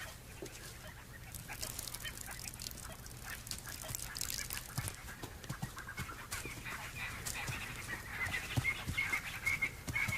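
Bird-like chirping and twittering: short, high calls repeated several times a second, scattered at first and growing denser and louder in the second half.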